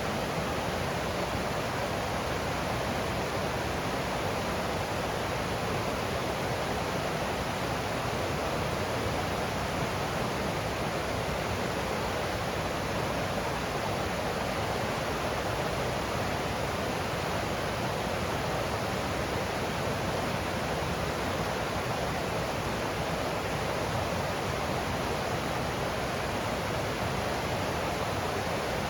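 Stream water rushing and splashing over rocks in a steady, unbroken rush.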